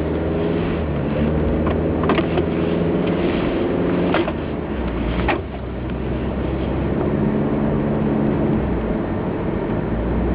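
Car engine and road noise while driving, a steady low drone with a few sharp clicks or knocks about two, four and five seconds in.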